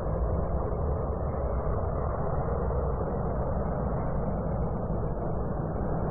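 Jet aircraft taking off: steady, unbroken engine noise, heavy in the low end.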